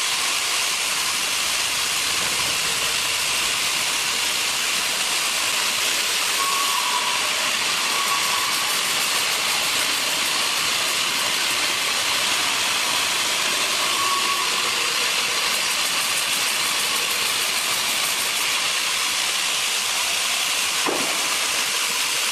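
Portable hydraulic band sawmill running, a steady even hiss-like noise throughout.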